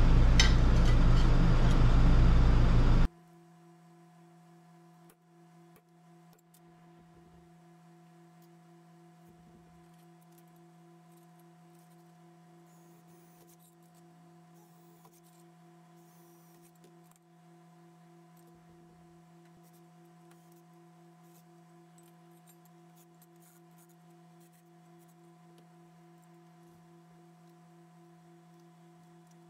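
A loud, noisy sound cuts off suddenly about three seconds in. Near silence follows, with only a faint steady hum of a few pitches, one of them pulsing.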